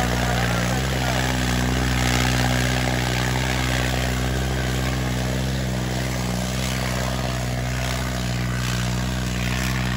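Diesel tractor engine running steadily at constant revs, a deep even drone with no changes in speed.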